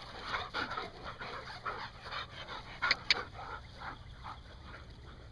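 Terriers panting in quick, irregular puffs as they run and play, with two sharp clicks close together about three seconds in.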